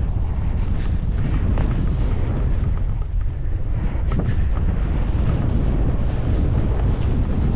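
Wind buffeting a skier's camera microphone as a steady loud low rumble, with skis scraping and thudding through chopped-up powder snow in short hissing bursts.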